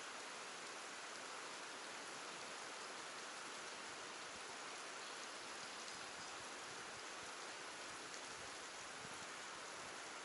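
Steady, even hiss of water.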